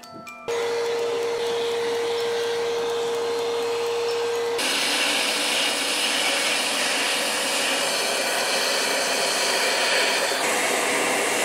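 Vacuum cleaner switched on about half a second in and running steadily with a steady whine. About four and a half seconds in the whine drops away and the hiss turns brighter, changing again near the end, as the nozzle is worked along the reed organ's empty reed cells to suck out dust.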